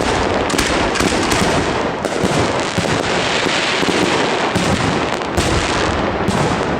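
Fireworks finale: a dense, continuous barrage of crackling bangs and pops with no break.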